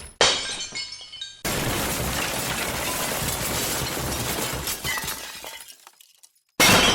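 Glass-breaking sound effects played one after another: a sudden shatter with shards tinkling and ringing out, then a longer crash of breaking glass that fades away over about four seconds, a brief silence, and another sudden crash near the end.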